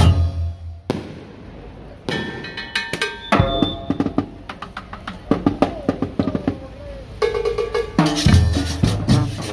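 Marching band drum line of snare drums, bass drums and cymbals playing a loud beat that stops just under a second in. Scattered sustained horn notes follow, and the drums come back in about eight seconds in.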